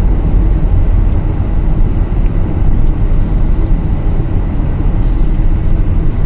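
Kia Carnival minivan driving at road speed, heard from inside the cabin: a steady low rumble of road and engine noise.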